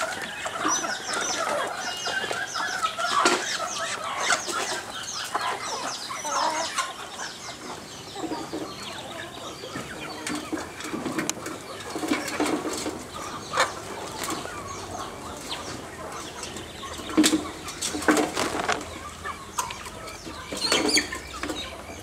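Backyard chickens clucking and calling, with many short high chirps over roughly the first seven seconds and scattered sharp knocks and rustles later on.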